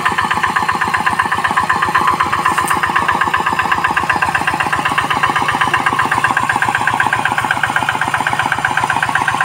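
Two-wheel hand tractor's single-cylinder diesel engine idling steadily, a rapid, even putter.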